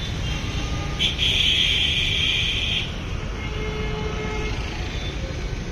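Steady street-traffic rumble with a vehicle horn blaring once for nearly two seconds, starting about a second in.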